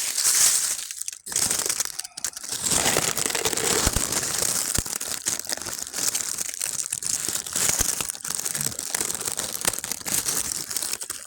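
Frozen, dry leaf litter crunching and crinkling underfoot: a steady run of many small crackles and snaps.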